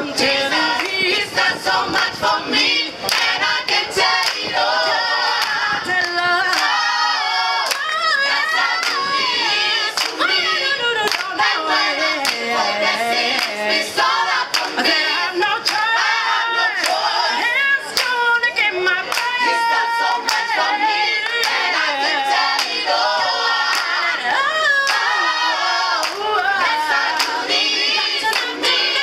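Choir singing a cappella, led by a woman's voice on a microphone, to hand clapping throughout.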